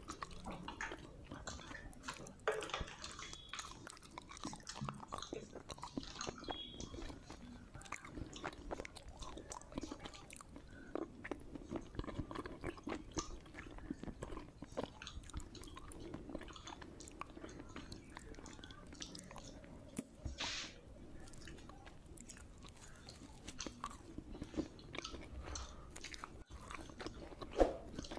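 A person chewing soft khichdi and scraps of omelette eaten by hand, with steady small clicks and wet mouth sounds, and her fingers wiping around a steel plate. A single sharp click stands out near the end.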